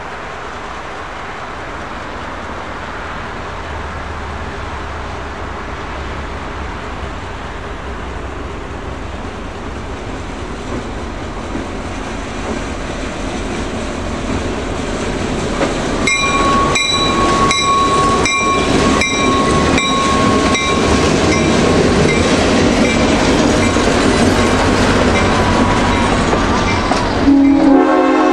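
Diesel locomotive hauling a passenger train approaches and passes, its rumble growing steadily louder. From about halfway, the wheels clack rhythmically over rail joints under a steady high tone. Near the end the locomotive's horn sounds.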